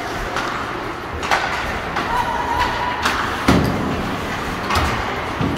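Ice hockey play in a rink: several sharp clacks of sticks and puck, with a heavier thud, like the puck or a player hitting the boards, about three and a half seconds in, over the steady hubbub of the arena.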